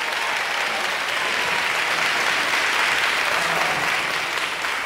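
Large audience of children and adults applauding, the clapping swelling toward the middle and easing off slightly near the end.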